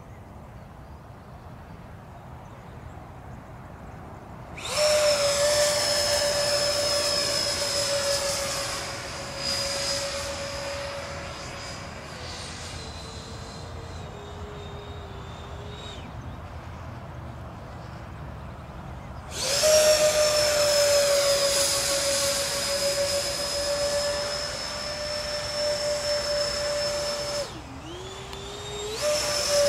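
Electric ducted fans of a Freewing MiG-29 RC jet whining in bursts as the throttle is opened and closed. A loud steady whine comes in about four seconds in and eases back, drops away, returns strongly around nineteen seconds in, then dips sharply in pitch near the end and swings back up as the throttle is cut and reopened.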